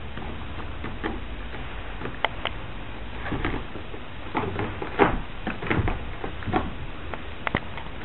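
A scatter of soft knocks and thumps over a steady low hum, loudest about five seconds in.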